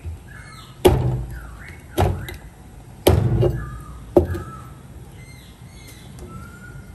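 Four heavy knocks about a second apart, each ringing briefly, with birds chirping in the background.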